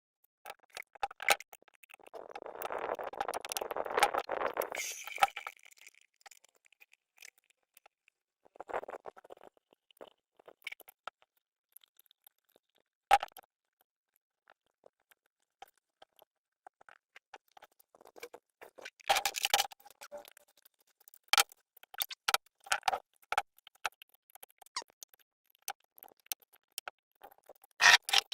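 Scattered clicks and taps of small hard objects being handled, with a few seconds of rustling or scraping noise starting about two seconds in and bunches of quick clicks later on.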